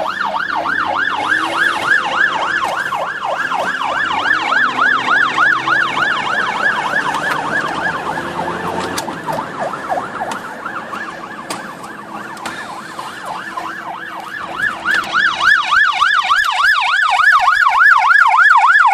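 Police car siren on a fast yelp, rising and falling a few times a second, from patrol cars in pursuit. It fades somewhat past the middle and comes back louder near the end, over the low hum of a car engine heard from inside the pursued car.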